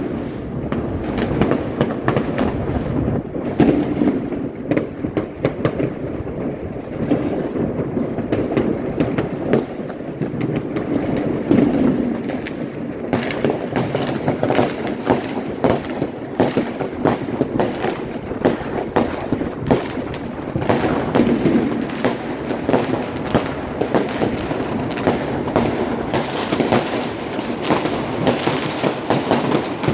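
A continuous barrage of fireworks and firecrackers going off, a dense crackle of many bangs with no pause.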